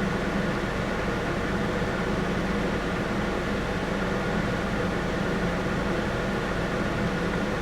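Steady idling engine hum with a constant low drone and no change in speed.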